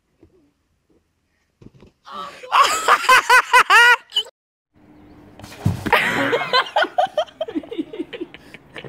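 Silence for about two seconds, then a burst of rapid, high-pitched human laughter lasting about two seconds. After a short gap, indistinct voices.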